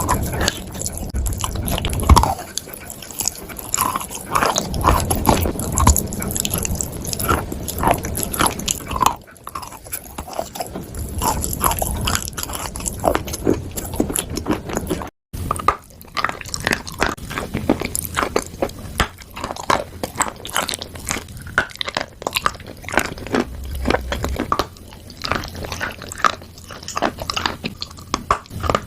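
Someone biting and chewing crunchy chalk and clay close to the microphone: dense, irregular crisp crunches and crackles, broken by a momentary drop-out about halfway through.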